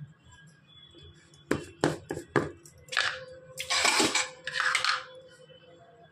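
Metal kitchen utensils clinking against an aluminium pressure cooker pot: four quick clinks, then three short rustling sounds.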